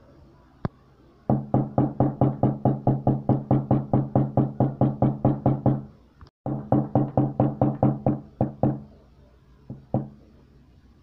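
Metal bundt cake pan full of batter being knocked against a hard surface in rapid, even taps, about five a second, each ringing briefly. Tapping the filled pan like this settles the batter and knocks out air bubbles before baking. The taps come in two runs broken by a short cut, with a few single knocks near the end.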